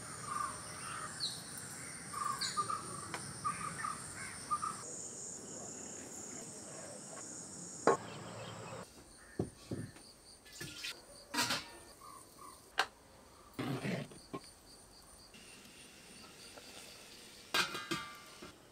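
Outdoor morning ambience of birds calling over a steady high insect drone, then a run of separate knocks and clinks from kitchen vessels being handled. Near the end comes the loudest sound, a metal pot clanking with a short ring.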